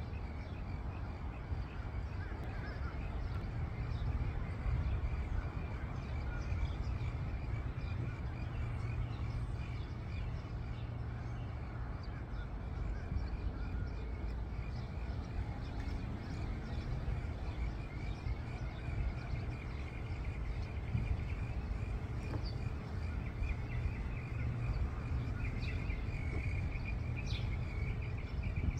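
Outdoor pond-side ambience: a steady low rumble under a continuous high, chirping chorus of small creatures.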